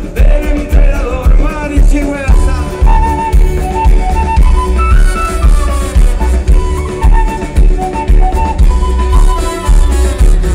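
Live band playing a Latin American folk-rock song with a steady beat. A wooden end-blown flute carries a melody of held notes over the guitar and drums from about two seconds in.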